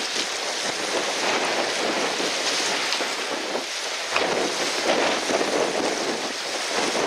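Strong wind buffeting the microphone over rushing, splashing water, with irregular surges in level.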